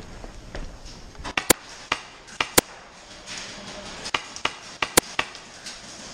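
Airsoft gun, a G&G ARP9 running on HPA with a Polarstar Jack engine, fired in quick single shots: about ten sharp cracks in pairs and short clusters as the shooter scores hits.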